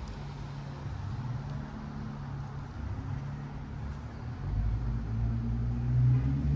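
Street traffic: a motor vehicle's engine running with a steady low hum, growing louder about two-thirds of the way through.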